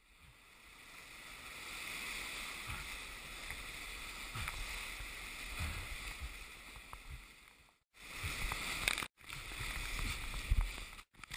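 Whitewater rapid rushing around a kayak as it is paddled through, with splashing and irregular low thumps of water and paddle strokes. The sound swells in over the first couple of seconds and cuts out briefly three times in the second half.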